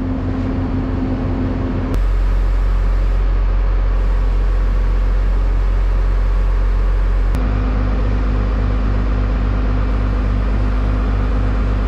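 Farm loader's diesel engine running steadily with a low hum, its tone changing abruptly about two seconds in and again about seven seconds in.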